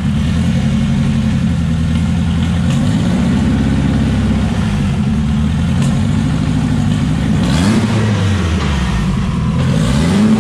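Turbocharged engine of a Subaru WRX running steadily with the car up on a lift, its note rising briefly twice near the end. Run this way to find a grinding, rubbing clutch noise, it makes nothing unusual without the car's weight to push, which the owner puts down to the lack of load.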